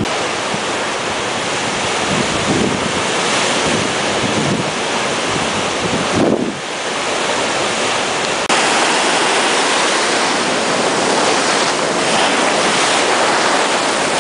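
Big surf breaking and rushing on a beach, with strong wind buffeting the microphone. The roar steps up suddenly in loudness a little past the halfway point.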